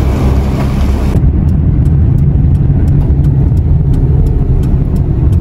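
Steady low rumble of a car's engine and road noise heard from inside the cabin. About a second in, a windy hiss stops suddenly, and a light regular ticking about three times a second follows.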